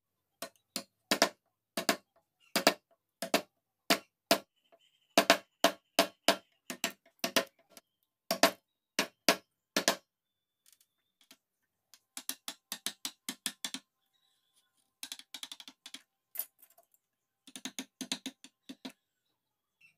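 Wood-carving chisels and gouges tapping and cutting into a mahogany panel: sharp taps, often in quick pairs or threes. After a short pause about halfway through come lighter, faster runs of taps.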